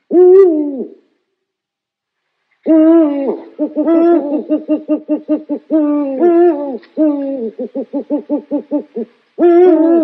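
An owl calling: one hoot that falls away at its end, then after a pause of nearly two seconds a long run of wavering hoots broken by quick stuttering notes, about five a second, and another falling hoot near the end.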